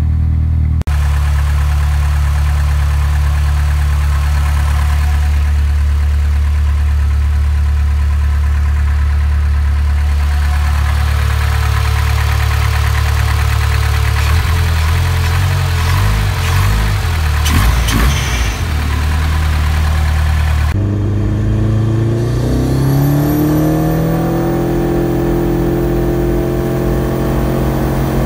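Partially built 2.2-litre pushrod four-cylinder engine running just after a −20 °C cold start, with piston slap from its forged Wiseco pistons at 0.004 in piston-to-wall clearance. It idles steadily, runs unevenly for a few seconds midway, and about three-quarters of the way through its pitch rises over a few seconds and then holds.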